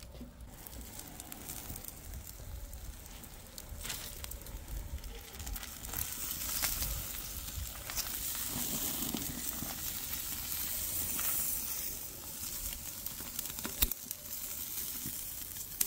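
Turkey leg sizzling as it sears directly on the hot grate of a charcoal grill, building a crust; the sizzle grows stronger after a few seconds. A few sharp clicks of metal tongs against the grate as the leg is turned.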